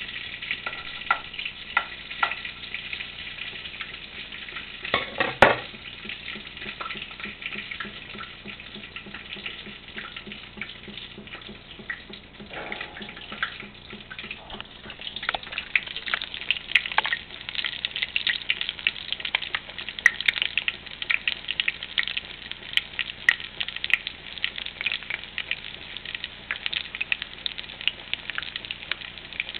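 Fish cake frying in hot oil in a skillet, sizzling and crackling steadily, with one sharp knock about five seconds in. The crackling grows denser and louder about halfway through.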